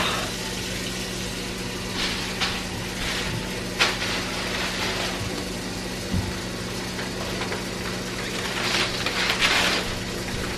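Steady electrical hum of a microwave oven running, with a few light knocks over it.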